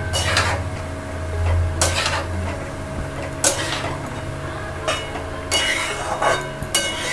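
Metal spatula scraping and knocking against a metal kadhai while stirring potato and pointed gourd pieces as they fry in masala, a scrape or clink about every second.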